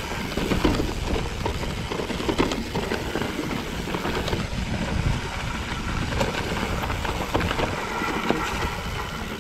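Mountain bike descending a rocky trail: tyres rolling and crunching over loose rock, with many small knocks and rattles from the bike, over a steady rumble of wind on the camera's microphone.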